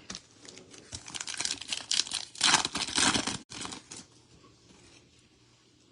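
Trading card pack wrapper tearing and crinkling in a quick run of rasps, loudest a little past the middle. It dies away about four seconds in.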